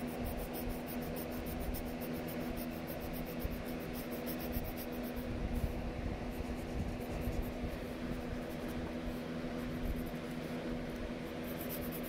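Mechanical pencil scratching on sketchbook paper in rapid back-and-forth shading strokes, through about the first half and again near the end, over a steady low hum.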